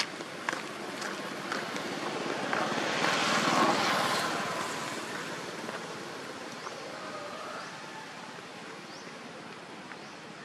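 A vehicle passing by: a rushing noise that grows to its loudest about three to four seconds in, then fades away. A few light ticks sound in the first second or so.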